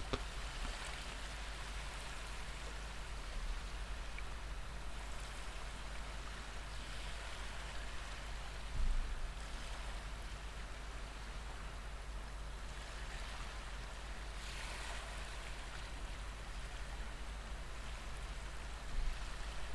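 Recorded ocean waves washing in a steady hiss that swells gently every few seconds, with a brief soft thump about nine seconds in.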